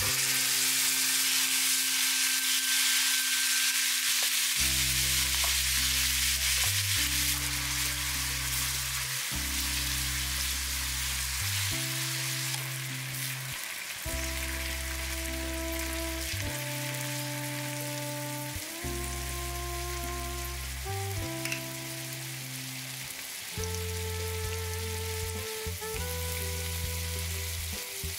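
Minced beef sizzling in hot oil in a frying pan, starting suddenly as the meat goes in and loudest over the first few seconds, then settling to a steady frying hiss as it is stirred. Background music with a bass line comes in about five seconds in.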